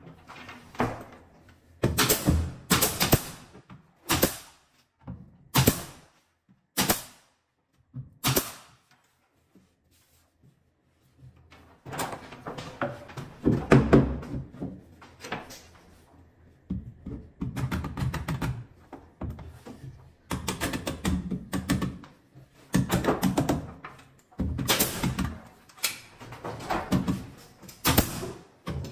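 Nail gun firing nails up through wooden ceiling panels into the battens: a series of sharp shots about a second apart, then a short pause, then denser knocking and clattering as panels are pushed into place and nailed.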